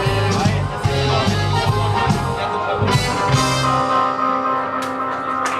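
Live rock band with electric guitars, bass and drums playing the close of a song: the bass and drum rhythm stops about four seconds in, leaving a held chord ringing with a couple of cymbal hits.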